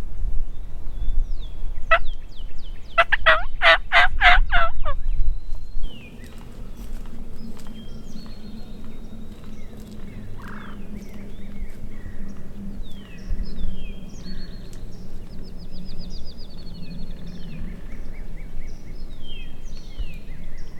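A wild turkey gobbling once, loud and close, a rapid rattling call about two to five seconds in, over a low wind rumble on the microphone. After it the sound drops abruptly to a quieter background of songbirds chirping and whistling.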